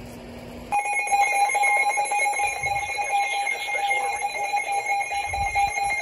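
Emergency Alert System two-tone attention signal, a steady alarm tone blaring from a Midland weather radio's speaker. It starts about three-quarters of a second in and holds unbroken. It announces an emergency alert, here a special marine warning about to be read.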